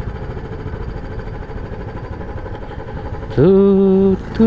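Motorcycle running under way with steady engine and road noise. About three and a half seconds in, a loud held tone sounds for under a second, followed near the end by a second, shorter one.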